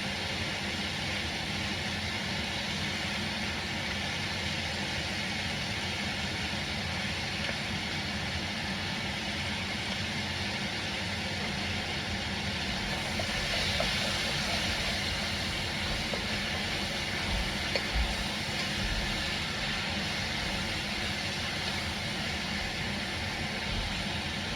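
Tomato sauce and vegetables cooking in a Dutch oven, a steady hiss with a low rumble underneath that swells a little past halfway.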